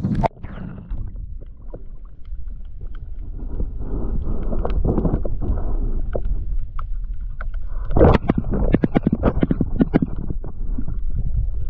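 Shallow water sloshing and splashing while wading, with a burst of sharp splashing about eight seconds in as a flounder is speared on the sandy bottom.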